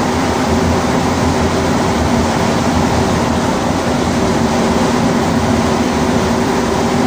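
Rubber-tyred AZUR metro train running at speed through a tunnel, heard from inside the car: a steady loud rumble with a constant motor hum.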